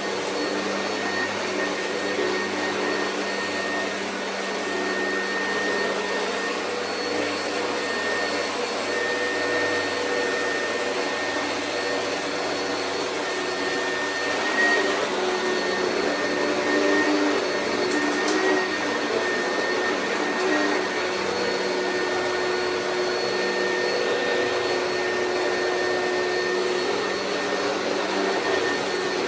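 Oreck vacuum cleaner running steadily: an even rush of air with a constant motor whine and a high steady tone.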